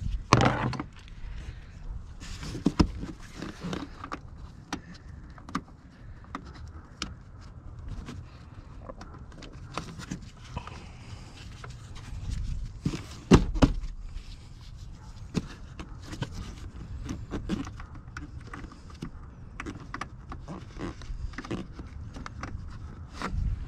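Scattered clicks and knocks of plastic push clips and trim panels being fitted back into a car's engine bay, with the sharpest knocks near the start and about halfway through.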